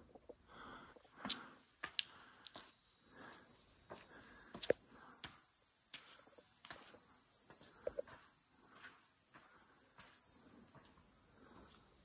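A faint, steady, high-pitched insect chorus that comes in about two and a half seconds in and carries on almost to the end. A few sharp knocks and scrapes are heard over it, the loudest about five seconds in.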